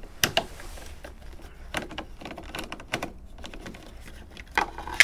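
Irregular clicks, taps and rattles of scooter parts being handled and taken off by hand, with sharper knocks about a quarter second in and near the end.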